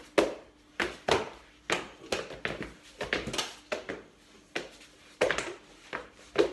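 Bunny hops on a wooden floor: hands and feet landing in a string of thumps, about two a second at uneven spacing.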